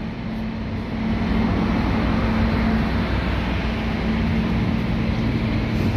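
Road traffic: cars driving past on a multi-lane road, a steady rush of engine and tyre noise with a constant low hum underneath.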